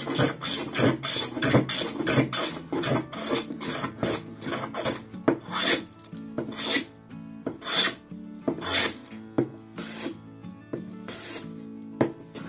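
Metal bench plane with a wooden tote and knob shaving a rough, weathered aspen pallet board, stroke after stroke, taking thick curled shavings. The strokes come quickly at first and slow to roughly one or two a second from about halfway.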